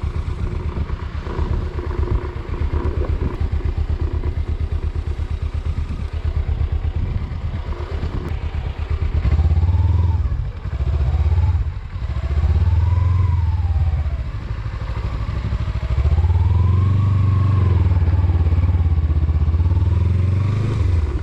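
Motorcycle engine running while riding. It gets louder about halfway through, and its note rises and falls three times as the rider accelerates and eases off.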